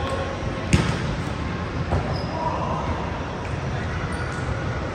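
A volleyball being struck during a rally in a large gym: one sharp smack about three-quarters of a second in and a softer hit about a second later, over the hall's steady background hum and faint voices.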